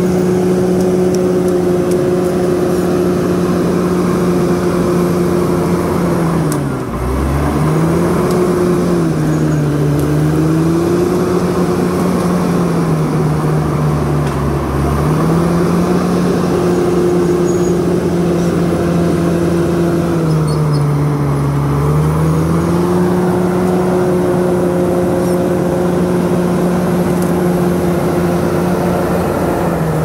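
Komatsu D68ESS crawler dozer's diesel engine running hard as the blade pushes earth and brush. The engine note drops several times, sharply once about a third of the way in, as it lugs under load, then climbs back to speed.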